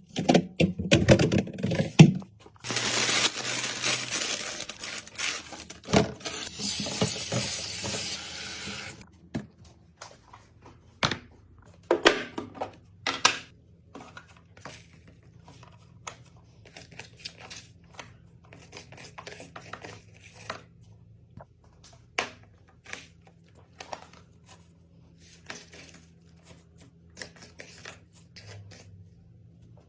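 Fridge-restocking handling sounds: containers and packaging clattering, then clicking and knocking as items are set down and arranged. A steady hiss runs for about six seconds near the start.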